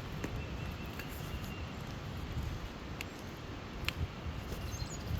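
Wind rumbling unevenly on the microphone, with a few sharp light clicks of the phone gimbal being handled.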